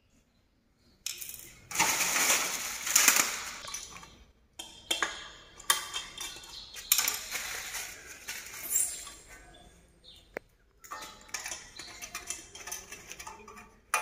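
Hands fitting a blade to a ceiling fan's motor: small metal head bolts and a screwdriver clinking and tapping, with rustling of the plastic sheet under the fan. The rustling is loudest about two to three seconds in, and scattered clicks and taps follow.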